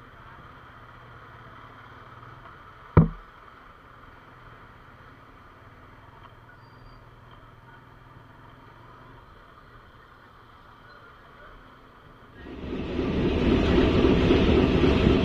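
Faint, muffled hum of a motorcycle ride, broken by a single sharp thump about three seconds in. About twelve seconds in it gives way to a loud, rough rumble on the deck of a river ferry.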